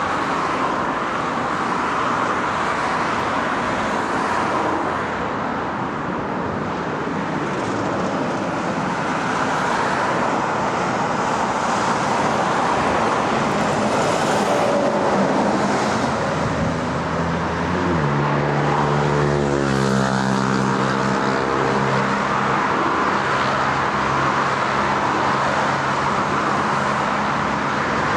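Steady road traffic noise as a Volvo FH articulated lorry carrying a Foxhound patrol vehicle on a low-loader trailer passes close by among cars and vans, its tyres hissing on the road. About two-thirds of the way through a deep, steady diesel engine hum comes in under the traffic.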